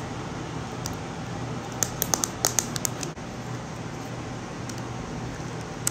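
Plastic cushion foundation compact being handled and opened: a quick cluster of sharp clicks and taps about two seconds in, over a steady low hum.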